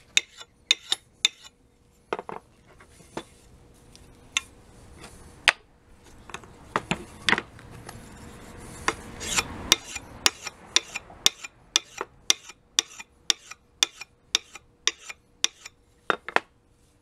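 Axe edge being honed by hand on a fine sharpening stone, stroked in one direction: a run of short scraping strokes, about two a second, with a longer, louder rasping stretch in the middle. This is the final honing to remove the last of the wire edge.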